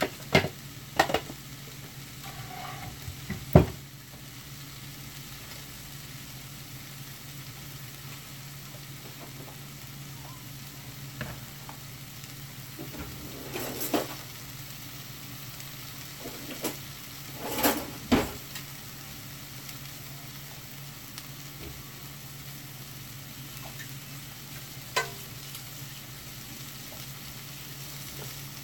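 Onions, bell peppers and tomatoes frying in oil in a large pan, a steady sizzling hiss over a low hum. Several sharp knocks and clunks of kitchen items being set down cut through it, the loudest about three and a half seconds in, with more around fourteen and eighteen seconds and one near twenty-five seconds.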